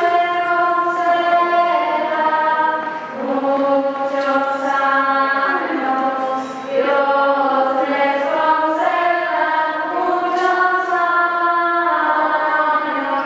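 Choir singing Orthodox liturgical chant in long held notes, moving from note to note in phrases a few seconds long.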